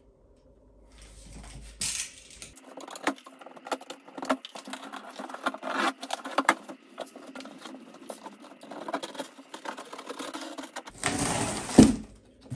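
A cardboard shipping box being slit open with a utility knife and handled: scattered clicks, scrapes and rustles, then a louder burst of cardboard and plastic-wrap rustling near the end as the box is opened.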